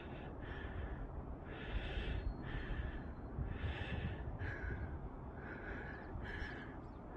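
A person breathing hard and rhythmically, about one breath a second, winded from a steep climb at high altitude, over a steady low rumble.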